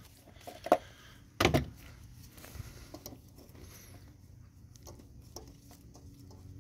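Hand ratchet turning a spark plug loose: faint, irregular clicks and ticks of the ratchet and socket, with a sharper click just under a second in and a louder knock about a second and a half in.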